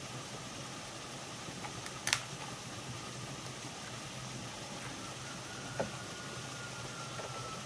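Wooden plank trough being carried and set down on the ground: a sharp wooden knock about two seconds in and a smaller one near six seconds, over a steady outdoor hiss.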